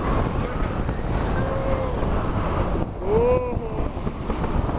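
Wind rushing and buffeting over the microphone in paragliding flight, with a short rising-and-falling voice-like call about three seconds in.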